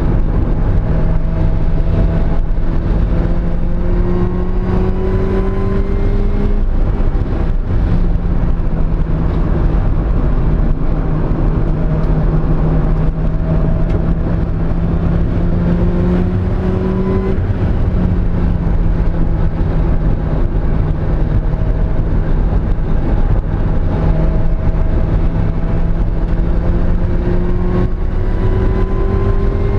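Mazda Miata's four-cylinder engine pulling hard on track, its pitch climbing slowly in three long runs, with sudden drops in pitch between them. The engine has a misfire on cylinder 2.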